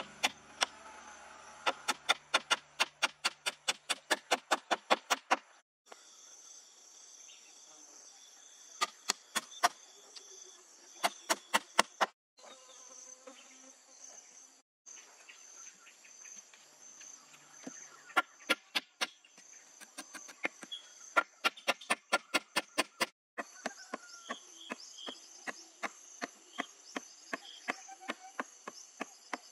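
A hammer striking a frame of thin wooden poles in quick runs of sharp knocks, about four blows a second, with pauses between the runs. A steady high chirring of insects runs underneath.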